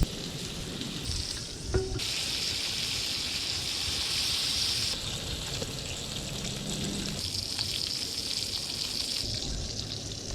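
Steady hiss of running water, changing abruptly in level several times.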